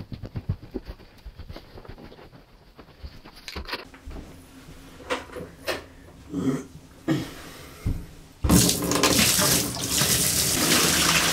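Water poured from a plastic bucket into an empty bathtub, starting suddenly near the end and splashing steadily onto the tub floor. Before it, soft thumps and a few knocks as the bucket is carried and set on the tub rim.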